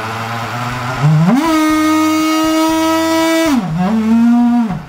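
Electric drive motor and propeller shaft of a homemade RC bait boat run out of water by the throttle: a low hum rises about a second in to a steady high whine, drops to a lower whine about 3.6 s in as the drive goes from forward to reverse, then dips and climbs again near the end. It runs with a slight vibration, which the builder puts down to a shaft coupling of mismatched diameters.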